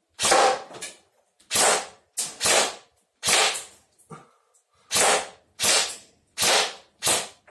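G&G GR25 airsoft electric rifle firing single shots one after another: about nine sharp cracks at irregular intervals of under a second, each trailing off briefly in the small concrete room.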